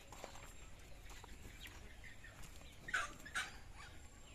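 A flock of free-range hens clucking, with two louder, short calls close together about three seconds in.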